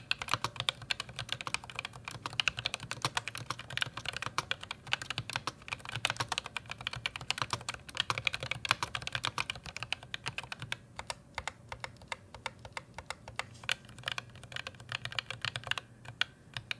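Typing on an ASUS ROG Claymore II keyboard with ROG RX Red linear optical switches: rapid keystrokes with no switch click, thinning to slower, more spaced presses from about ten seconds in.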